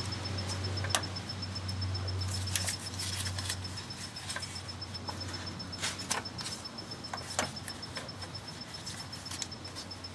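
Scattered small clicks and scrapes from gloved hands working plastic duckbill clips off the fuel-line fittings of a Ford fuel filter. A low steady hum fades out about four seconds in.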